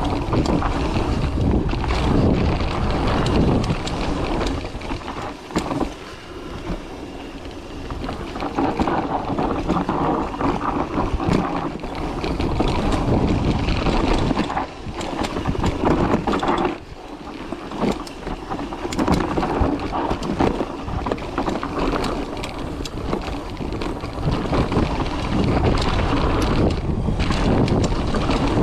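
Mountain bike descending a dirt singletrack: wind rushes over the GoPro Hero 8's microphone while the tyres roll over the dirt and the bike rattles and clatters on the bumps. The loudness swells and drops with the riding.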